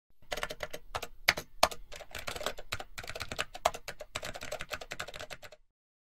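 Rapid, irregular clicking of keys being typed, stopping abruptly about half a second before the end.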